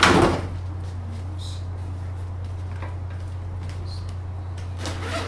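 Unpacking handling noises: a sharp thump right at the start, then soft rustles and light ticks of a fabric carrying bag being opened. A steady low hum runs underneath.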